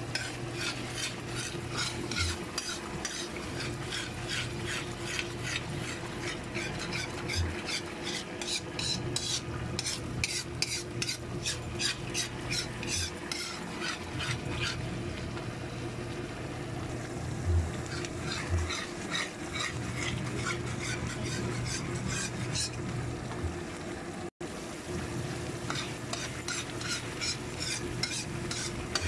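A metal spoon scraping and stirring bubbling coconut cream in a metal pan, in repeated strokes, as the cream cooks down into latik. A steady low hum runs underneath.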